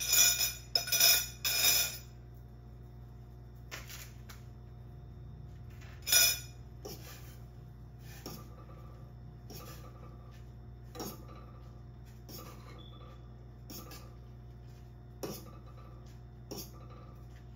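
Dishes clattering: a few loud clinks in the first two seconds and another about six seconds in, then faint scattered taps over a steady low hum.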